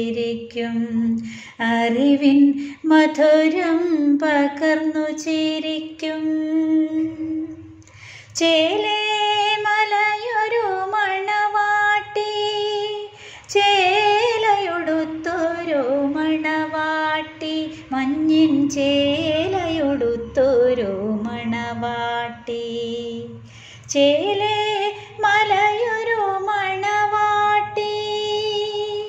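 A woman singing a Malayalam song in long phrases of held notes with ornamented turns in pitch, over a faint low backing.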